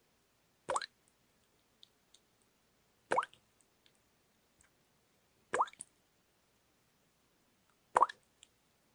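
Water dripping into water: four single drops about two and a half seconds apart, each a short plop with a few faint droplet ticks after it.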